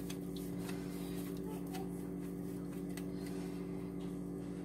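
Cheese being grated on a flat handheld grater: faint, irregular scraping strokes over a steady low hum.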